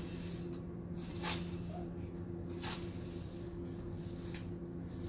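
A broom sweeping a concrete floor: short bristle swishes about one every second or so, the loudest about a second in, over a steady low hum.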